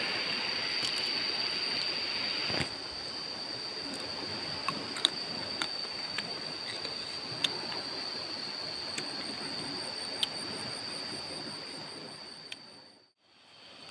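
Steady rush of a fast-flowing river, with a high steady whine running over it and a few scattered small clicks; the sound cuts out abruptly near the end.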